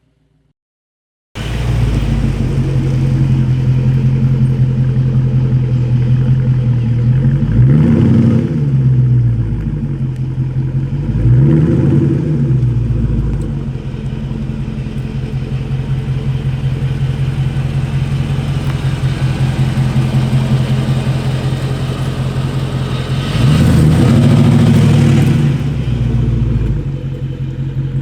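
Dodge Charger Scat Pack's 392 (6.4-litre HEMI) V8 idling with a steady, deep exhaust note, blipped three times: twice close together about a third of the way in and once near the end, each rev rising and falling back to idle.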